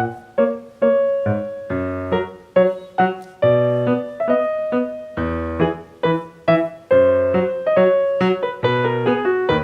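Background piano music: a light melody of plucked-sounding notes, each struck and dying away, with bass notes underneath.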